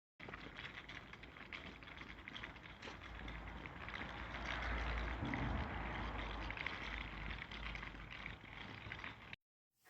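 Wooden pull-along dog toy rolling along, its wheels giving a steady rattling clatter of many small clicks over a low rumble, which cuts off abruptly near the end.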